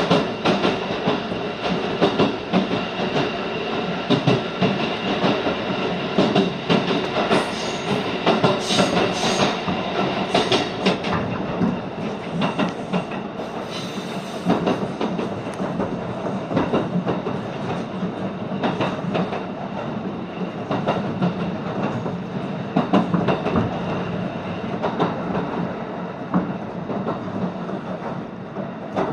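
Electric train running at speed, heard from inside the passenger car through a tunnel: a steady rumble and hum from the running gear, with the wheels knocking and clattering over the rails throughout.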